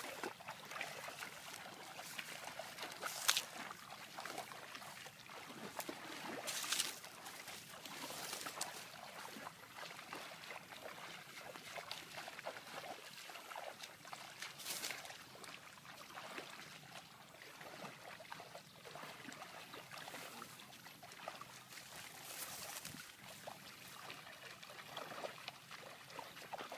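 Shallow pond water sloshing and splashing as two people wade through it, dragging a net. A few sharper splashes come now and then.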